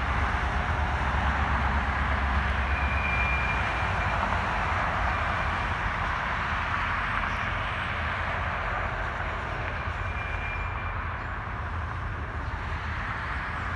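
Steady rumble and hiss of highway traffic mixed with a freight train of covered hoppers rolling by. A heavy box truck's deep rumble is strongest in the first few seconds and eases off, and two brief faint high squeals come through near the start and past the middle.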